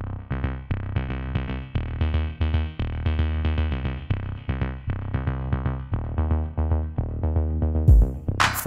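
Electronic background music: a synth line of short repeating notes over a heavy bass. Near the end a deep kick drum and bright crashing hits come in.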